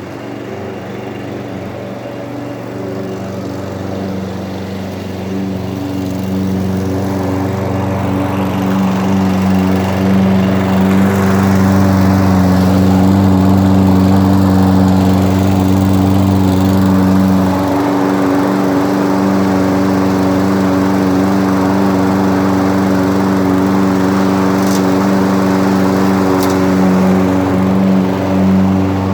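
Toro Recycler walk-behind mower's small single-cylinder engine running steadily while mowing grass. It gets louder and rougher over the first ten seconds or so as the blade works through the grass.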